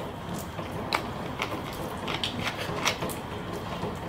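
Plastic screw cap being twisted back onto a plastic drinks bottle, with a scatter of small clicks and taps as the cap and bottle are handled.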